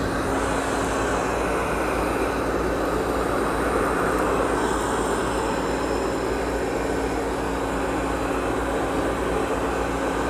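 Amarey A800 robot vacuum running, a steady hum of its suction motor as it sweeps up scattered kitty litter.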